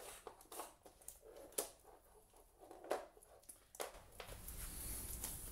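Electrical cables and small plastic converter boxes being picked up and handled: several faint clicks and rustles, about a second apart.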